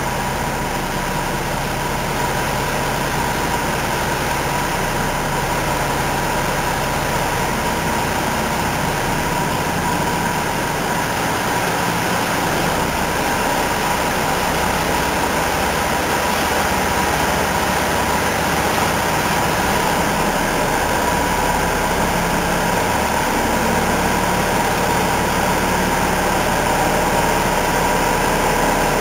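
1979 Unimog's diesel engine running steadily at low speed as the rail-wheeled tractor slowly tows a streetcar along the shop track, growing slightly louder as it comes closer.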